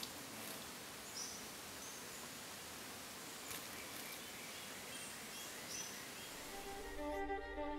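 Steady forest ambience hiss with a few short high chirps and brief splashes of a small bird bathing in shallow water. String music comes in near the end.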